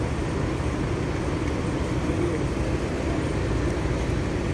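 Steady low rumble of running vehicle engines and traffic, with no sudden events.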